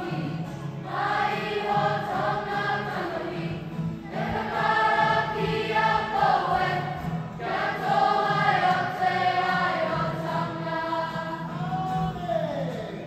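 Kapa haka group of boys and girls singing together as a choir in long held phrases, breaking every few seconds. Near the end a phrase closes with a falling slide in pitch.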